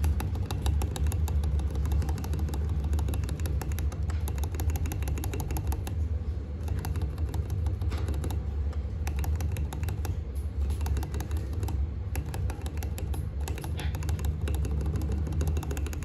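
Rapid keystrokes clacking on a rebuilt Leopold FC660M mechanical keyboard, including the spacebar, which ticks lightly because its stabilizer will not sit straight despite repeated tuning. A steady low hum runs underneath.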